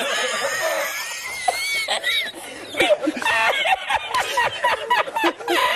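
A man laughing uncontrollably: long, high, gliding cries for the first couple of seconds, then a brief catch of breath and quick, choppy laughs through the rest.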